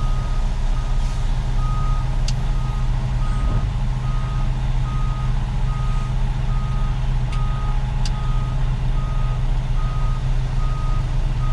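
Reversing alarm on a concrete mixer truck, beeping steadily at about one beep a second, over the steady low drone of the truck's diesel engine.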